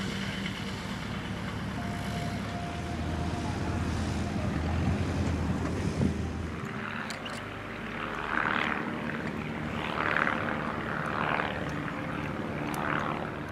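Propeller-driven light aircraft engine running steadily, with several louder surges of noise in the second half.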